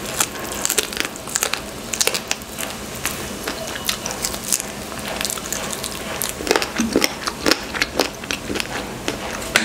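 Close-miked eating: biting into and chewing a piece of grilled chicken, with many irregular sharp clicks and crackles of the mouth and food.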